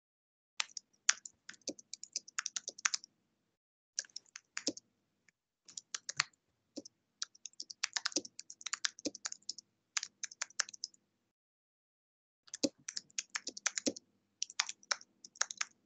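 Typing on a computer keyboard: quick runs of keystrokes broken by short pauses, with a longer pause about eleven seconds in.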